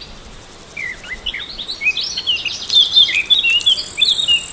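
Small birds singing in a forest, many quick chirping and sliding whistled notes overlapping. About three and a half seconds in, a steady high-pitched insect-like buzz joins them.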